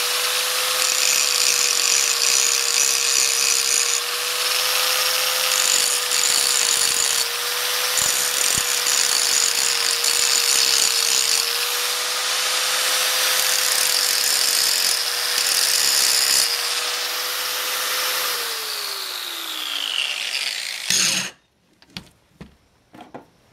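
Angle grinder grinding an aluminium full roller rocker arm clamped in a vise: a steady motor whine under the hiss of the disc on metal, cutting clearance into the rocker body so it no longer hits the rocker stud. About eighteen seconds in the grinder is switched off and its whine winds down to a stop, followed by a few light knocks.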